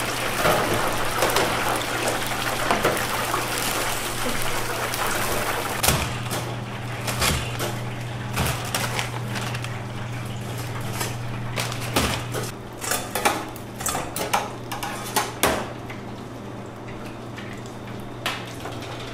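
Karaage frying in a deep fryer, the hot oil sizzling in a loud hiss for the first several seconds as the pieces are scooped out. Then metal utensils, bowls and paper bags clatter on a steel counter in a run of sharp clicks and knocks, over a steady low hum that stops about twelve seconds in.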